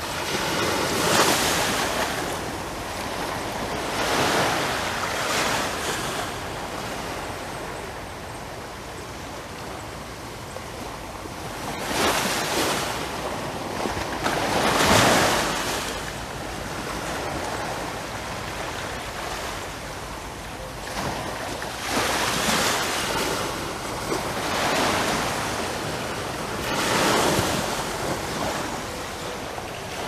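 Small sea waves breaking and washing up a sandy beach, a surge every few seconds, with tiny rocks rolling in the backwash as the water drains away. The loudest surges come a little after the start and about halfway through.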